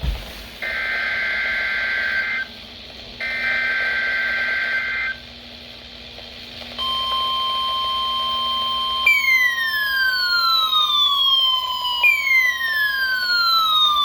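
Weekly weather radio alert test: two harsh bursts of the EAS/SAME digital header tones, then the steady 1050 Hz weather radio warning alarm tone. About two seconds into the alarm tone a falling, siren-like sweep joins it, repeating about every three seconds.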